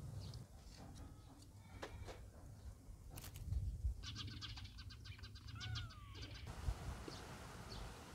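Outdoor yard ambience with a low rumble and a few light knocks. From about four seconds in come a run of quick, high chirping calls and one short falling animal cry.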